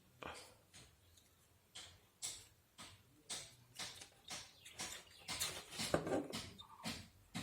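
Short scraping clicks of a tool working at an LED bulb's circuit board as a faulty LED chip is prised up, about two strokes a second, coming closer together around five to six seconds in.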